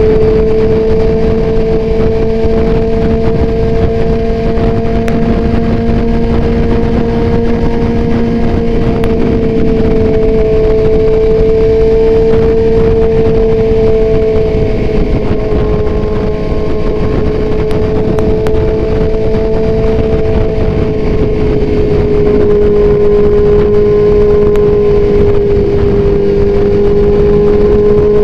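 Motorcycle with an Austin Racing aftermarket exhaust cruising at highway speed, its engine holding a steady high note that drifts only slightly, over a constant wind and road rush.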